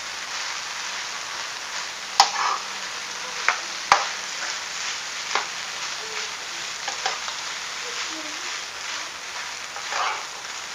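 Fried rice with meatballs and egg sizzling in a wok while a metal spatula stirs and scrapes through it, with sharp clicks of the spatula against the pan, the loudest about two and four seconds in.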